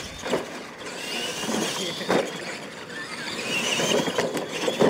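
Radio-controlled monster trucks racing over ramps: a high motor and gear whine rising and falling with the throttle, with a few sharp thumps as the trucks land, the loudest near the end.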